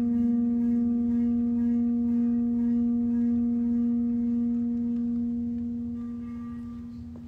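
Large round metal Chladni plate, rubbed at its edge, ringing with one steady low tone and higher overtones: the resonance that holds the sprinkled sand in a star-shaped pattern. The tone fades over the last couple of seconds.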